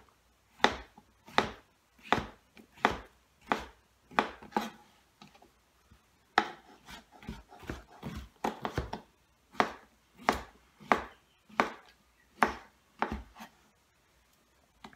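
Chef's knife slicing pheasant back mushroom into thin strips on a plastic cutting board: a sharp knock of the blade on the board with each cut, about one and a half cuts a second, pausing briefly midway and stopping near the end.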